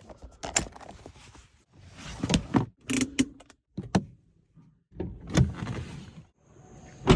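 A series of mechanical clicks and thunks from a Suzuki Baleno car's fittings and controls, each separate, with short stretches of softer rustling in between.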